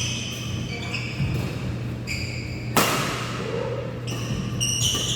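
Badminton play in a hall: court shoes squeaking on the floor, with one sharp racket strike on the shuttlecock a little under three seconds in, over a steady low hum.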